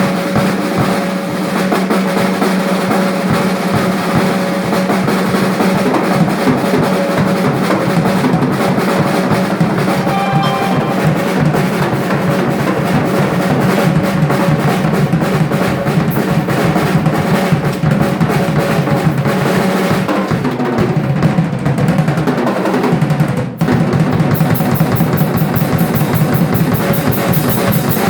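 Rock drum kit played solo: fast, continuous rolls and fills on the snare, toms and bass drum. A short break comes about 23 seconds in, then the drumming picks up again with a fast, even beat in the high cymbals.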